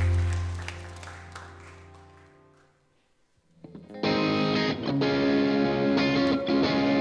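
A worship band's final held chord fades out to silence. About four seconds in, the band starts a new song with strummed guitar.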